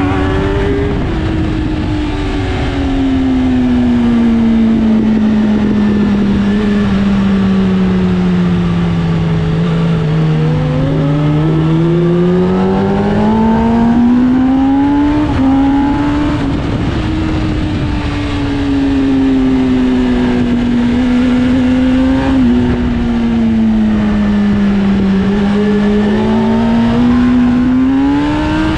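Sport bike engine heard onboard while riding a track lap, with heavy wind rush. Its pitch falls slowly for about ten seconds, climbs again, dips a second time and rises near the end.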